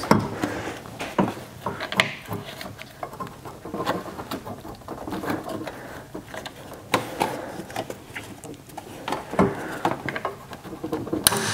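Irregular plastic clicks, knocks and rubbing from a PCM wiring-harness connector being worked by hand, its locking lever flipped and the plug wiggled while it stays stuck. Sharper clicks come about two seconds in, around seven and nine seconds, and near the end.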